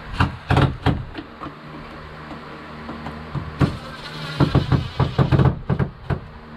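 Sharp knocks and clicks of screws and a shower fixture being handled and fitted, thickest about four to five seconds in, over a steady low hum.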